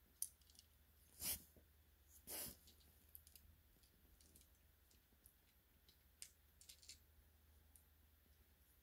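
Near silence: room tone with a few faint clicks, and two short soft rustles about a second and two seconds in.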